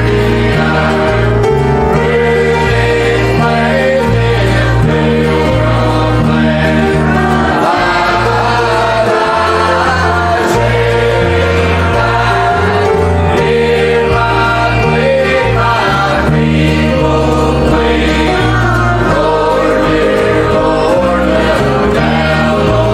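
A choir singing a hymn with instrumental accompaniment and a moving bass line.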